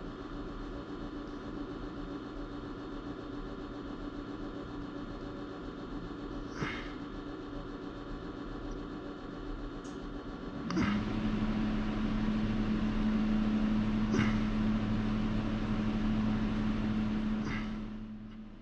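A steady machine hum: a quieter background drone, then a louder hum with a low droning tone that comes in suddenly about eleven seconds in, with a few light clicks.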